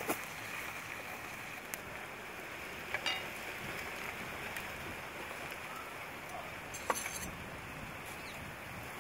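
Sliced onions and green chillies sizzling in oil in a metal wok over a wood fire, with a steady hiss, while a metal ladle stirs them and clinks against the pan now and then.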